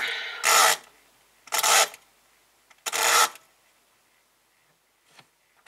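Flip-card clock mechanism of a DYN DS-4547 clock radio riffling rapidly as its time-set knob is turned by hand: three short rasps about a second apart, each a quick run of number cards flapping over.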